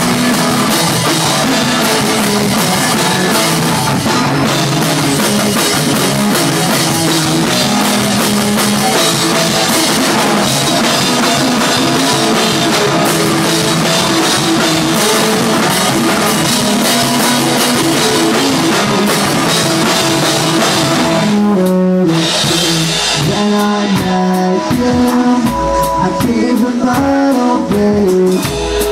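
Rock music played on a drum kit and electric guitar, loud and dense with constant cymbal wash. About three-quarters of the way through it drops out for a moment and returns as a sparser, punchier passage of drum hits and pitched notes.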